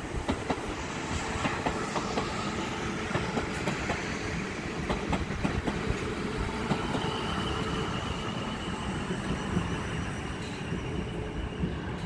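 Class 450 Desiro electric multiple unit passing close by, its wheels clicking over the rail joints under a steady running rumble, with a steady high whine joining in the second half.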